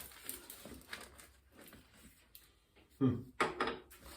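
Old, hardened bicycle tire being worked off the rim by hand: scattered scuffs and scrapes of rubber against the rim, with short effort sounds from the person about three seconds in.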